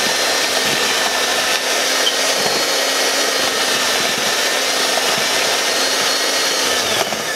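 Electric hand mixer running steadily at speed, its twin beaters churning creamed butter, sugar and egg in a plastic bowl; it winds down and stops near the end.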